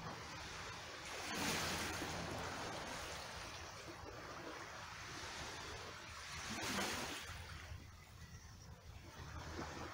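Small waves washing over a rocky, cobbled shore over a steady wash of water, swelling twice: about a second and a half in, and again near seven seconds.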